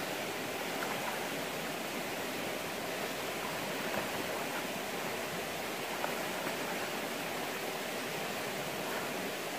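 Steady rush of flowing river water, with a few small splashes near the middle as a person dives and kicks through the water.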